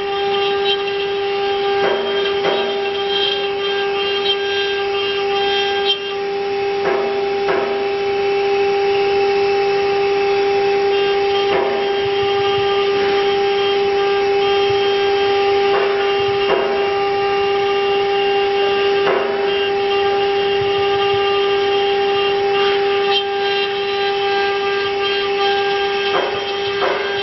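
CNC router spindle running with a steady high-pitched whine, with a short scraping burst every few seconds, at about 2, 7, 12, 16, 19 and 26 seconds in.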